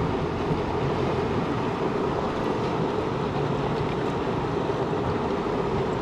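Arkansas River water rushing steadily over and between boulders close by: a continuous, even, low-pitched rush.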